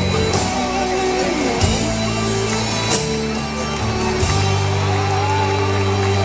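Loud rock music from the show soundtrack: sustained guitar chords over a heavy bass line, with sharp accents about a second and a half in and again about three seconds in.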